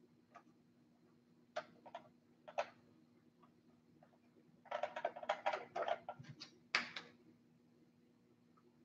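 Fingers clicking and tapping on an RC truck's body: a few scattered clicks, then a quick run of rapid clicks about five seconds in, ending in one sharper click. A faint steady hum lies underneath.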